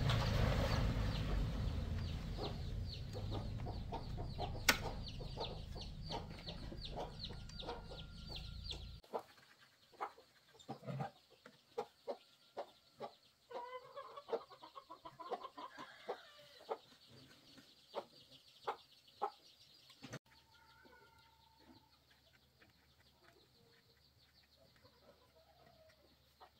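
Chickens clucking, with short metallic clicks and knocks from hand tools on a small trimmer engine. A low machine hum fades away and stops about nine seconds in.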